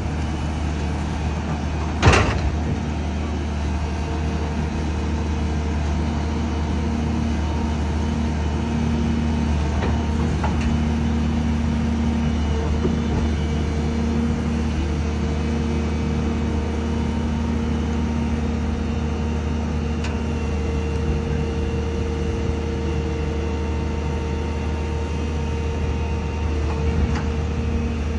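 A dump truck's diesel engine running steadily under heavy load, labouring as the truck struggles up a ramp. There is one sharp bang about two seconds in.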